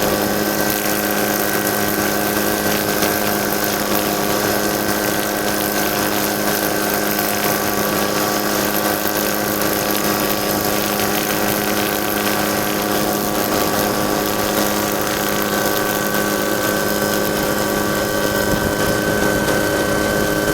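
Helicopter engine and rotor noise heard from on board: a steady drone with a constant hum and a higher whine that hold the same pitch throughout.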